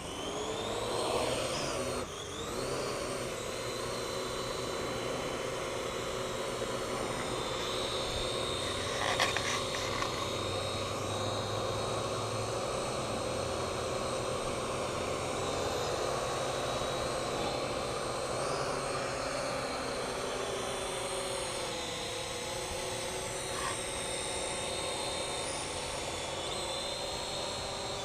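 Parrot AR.Drone 2.0 quadcopter's electric rotors whining up in pitch in the first couple of seconds, then running at a steady hum, with a brief click about nine seconds in.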